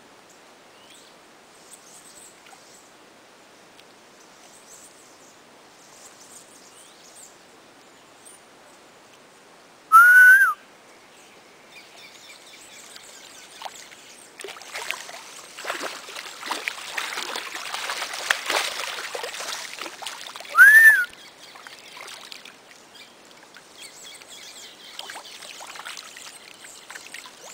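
A caiman thrashing and splashing in shallow water at the bank while an electric eel shocks it; the splashing builds about halfway through and eases off later. Two loud, short whistled calls about ten seconds apart are the loudest sounds.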